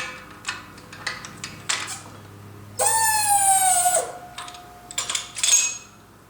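The freshly assembled gear train of a Triumph Spitfire 1500 single-rail gearbox being turned by hand: metal clicks from the gears, and about three seconds in a loud ringing whine that drops a little in pitch and fades over about two seconds as it spins freely.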